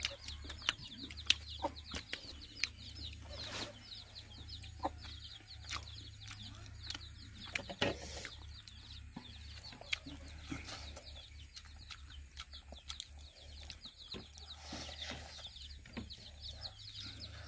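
Chickens clucking and chirping in the background, a fast, continual run of short high chirps, with scattered sharp clicks and knocks over a steady low hum.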